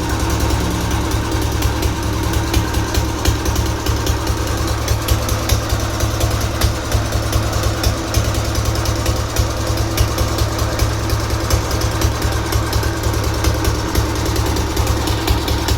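Old diesel engine running steadily at idle, with a rapid, even knocking beat from its firing strokes.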